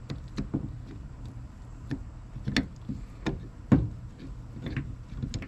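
Irregular metal clicks and knocks as an old LS engine oil pump is worked apart by hand, its cover and gears clinking against the pump body; one sharper knock comes about two-thirds of the way through.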